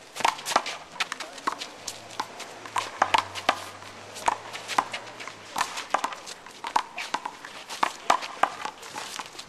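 One-wall handball rally: the small rubber handball is slapped by hand and smacks off the concrete wall and court in a quick, irregular run of sharp smacks, several a second.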